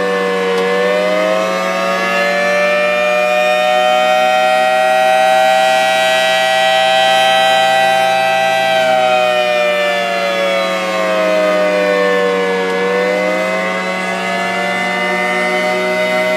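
Rotating outdoor civil-defense warning siren sounding a slow wail. Its pitch dips low just after the start, climbs and holds high for several seconds, falls again about twelve seconds in, then starts to rise near the end. A steady low hum runs underneath.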